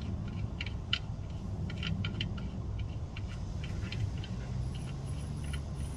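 Scattered light clicks and taps of hand work on parts during an oil change, at irregular spacing over a steady low hum.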